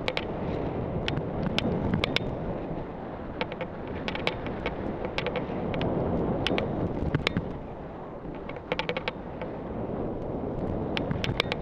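Skis running down a snow slope, a steady rushing hiss and scrape of the skis on the snow mixed with wind buffeting a helmet-mounted camera's microphone. Sharp, irregular clicks and ticks break in throughout.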